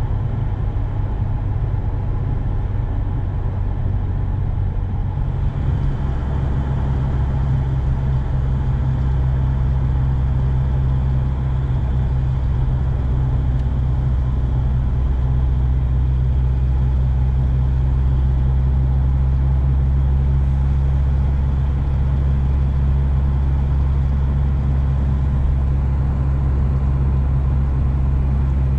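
1992 Volvo 240's 2.3-litre B230FK turbocharged four-cylinder engine running at a steady cruise with road noise, heard from inside the cabin. The low drone shifts about five seconds in, then holds steady.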